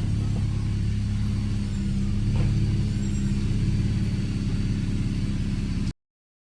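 Chrysler 300 being driven, its engine running with a steady low hum under road noise. The sound cuts off abruptly near the end.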